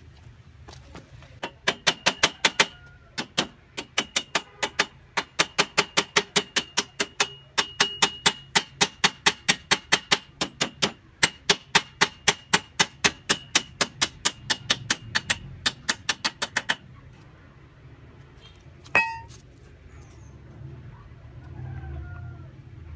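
Hammer rapidly striking the end of a steel-tube rail of a children's ride-on train track, about five ringing metal blows a second, driving the rail sections together at a joint. The hammering stops about three-quarters of the way through, and there is one more clank a couple of seconds later.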